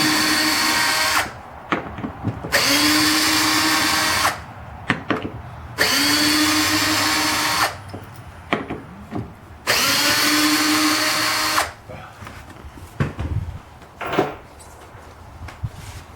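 Power drill/driver running in four bursts of about two seconds each, each spinning up to a steady whine, with small clicks and knocks between bursts: backing out the door's hinge screws.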